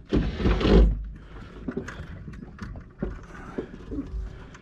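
Water sloshing and slapping against the bow of a small boat, loudest in the first second, then quieter with a few faint knocks.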